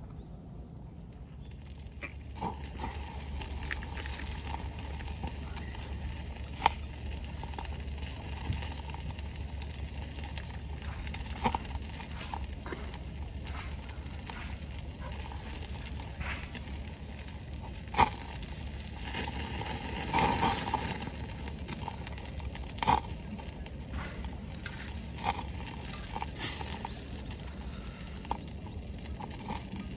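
Meat sizzling on a hot pan, starting about a second in, with a steady hiss and scattered sharp pops and crackles.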